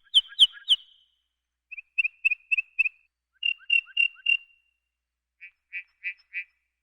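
A prairie race lark singing: four short phrases, each of four or five sharp, high, evenly spaced notes, with brief pauses between them; the last phrase, near the end, is fainter.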